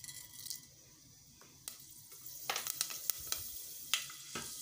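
Fenugreek seeds sizzling in hot oil in a stainless steel pot, the first step of tempering. The sizzle is faint at first, then from about halfway through it picks up into a crackle with many sharp pops.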